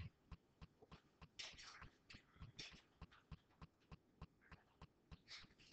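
Near silence: room tone with faint, irregular clicks and taps and a few brief hissy rustles.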